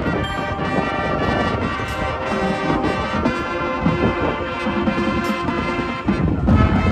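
Marching band playing, with the brass section holding full sustained chords over the front-ensemble percussion. About six seconds in the high brass drops away, leaving lower notes and percussion hits.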